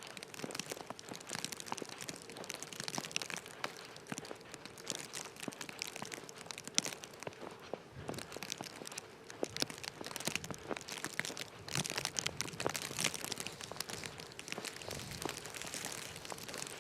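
Footsteps crunching in snow: a dense, irregular run of crunches and crinkles over a light hiss, with a faint steady hum underneath.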